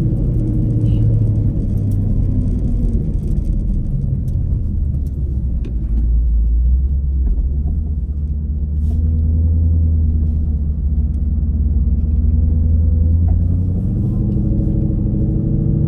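Whipple-supercharged Ford Coyote V8 of a drag-race Mustang running at low speed, a deep steady rumble. Its note sinks lower in the middle and picks up again near the end.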